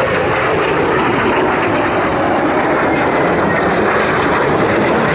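Loud jet noise of a Kawasaki T-4 twin-turbofan trainer flying past: a steady rush with a faint whine slowly falling in pitch.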